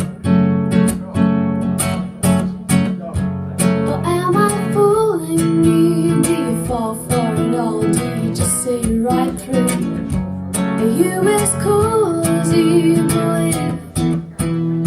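Recorded music played back over high-end hi-fi loudspeakers in a show demo room: strummed acoustic guitar, with a gliding melody line coming in about four seconds in.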